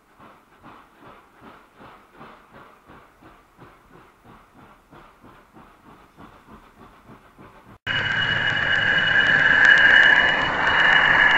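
Model train's wheels clicking over the rail joints about four times a second as it crosses a 4mm-scale layout viaduct. About eight seconds in it cuts to a much louder steady whine with rushing noise: a model train's motor and wheels heard close up through a mini camera riding on the train in a garden railway.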